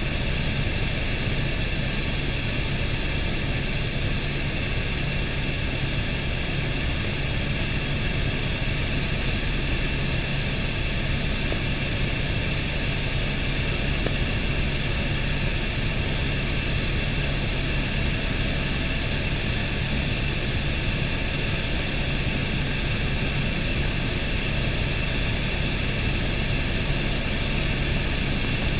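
Helicopter in cruise flight heard from inside the cabin: a loud, steady drone of engine and rotor, with a constant low hum under a higher hiss, unchanging throughout.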